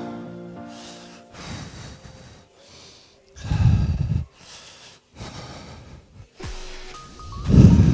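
A man breathing hard during lunge thrusts, with two loud, deep exhales, one about three and a half seconds in and one near the end. Background music plays at the start and fades out.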